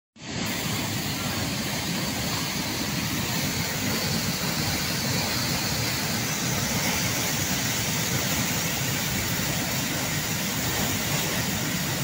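Muddy flash-flood torrent rushing down a creek channel: a steady, unbroken rush of churning floodwater.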